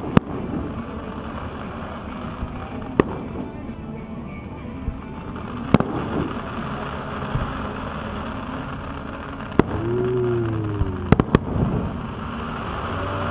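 Fireworks shells bursting at a distance, a sharp bang every few seconds, with a rapid cluster of three bangs about eleven seconds in. Music plays underneath.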